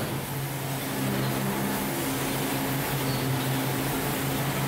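Forging press machinery running with a steady low hum over a broad hiss, with no blows struck.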